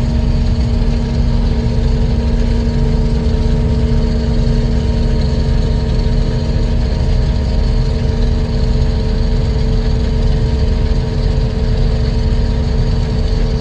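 Heavy farm machinery running steadily: a deep engine rumble under several steady whining tones, with no change in speed.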